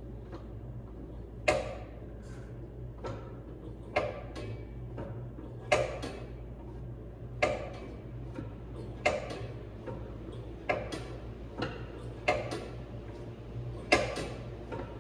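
Engine being barred over by hand: a sharp metal clank about every second and a half, with lighter ticks between, as the bar is worked to rotate the engine a little at a time and line up the drive coupler's bolt holes.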